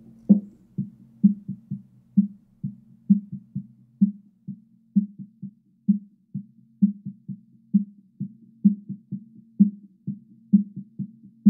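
A stereo drum-kit mix playing through a narrow, high-Q EQ peak near 213 Hz with everything either side filtered out. Only muffled drum hits in a steady beat come through, the snare's resonant note the strongest.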